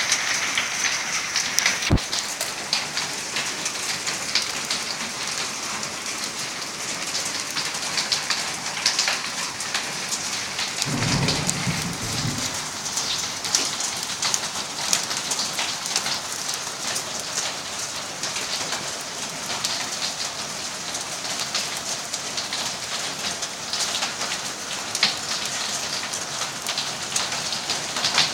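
Rain mixed with hail, a dense steady patter with many sharp ticks of hailstones striking surfaces. A short low rumble about eleven seconds in lasts a second and a half.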